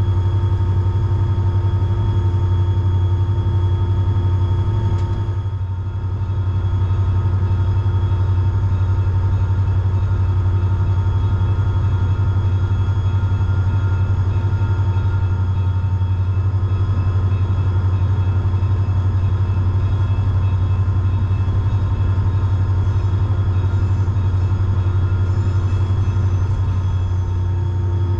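EMD SD40-3 diesel-electric locomotive running steadily as it pulls up the grade, its 16-cylinder two-stroke engine giving a constant low drone with steady higher tones above it. The sound dips briefly about six seconds in.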